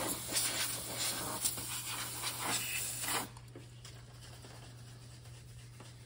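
Compressed-gas duster can spraying in short hissing blasts, blowing dust off a refrigerator's condenser coil; the spraying stops suddenly a little over three seconds in.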